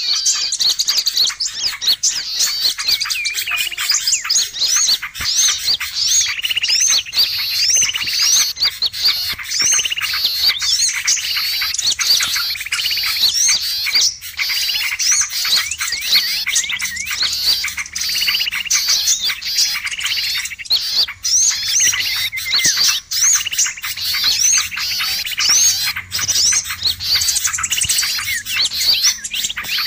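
A dense, unbroken chorus of many small songbirds chirping and twittering at once, short high notes overlapping without pause. It is a bird-lure (pikat) recording of noisy small birds, the kind played to draw wild birds in.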